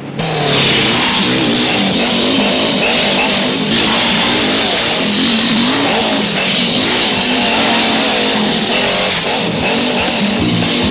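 Action film score with guitar, mixed with the engines of motorcycles being ridden. It comes in suddenly at the start and stays at a steady level.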